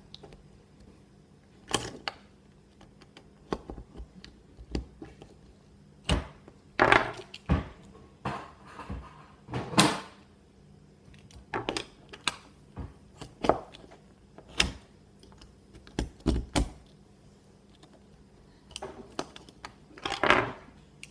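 Irregular clicks and knocks of a hard plastic fidget cube being pried and worked at by hand, with a few short scraping sounds as the tool or fingers slip against the plastic.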